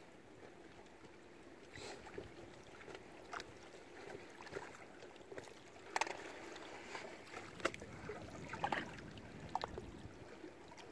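Lake water lapping and splashing against moored boats, with a steady wash and irregular small slaps and plops that cluster in the second half.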